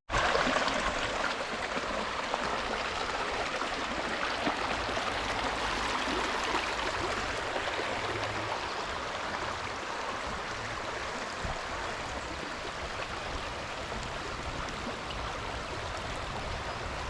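A small creek's water running steadily over its bed.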